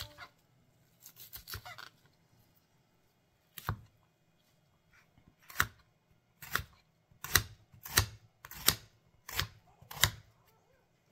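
Kitchen knife chopping a red onion on a cutting board: one chop, then a run of sharp, evenly spaced chops, about one or two a second, that gets a little faster.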